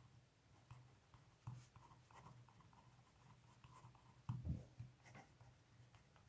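Pen writing on paper: faint scratching of short strokes as words are written out, with a soft low bump about four seconds in.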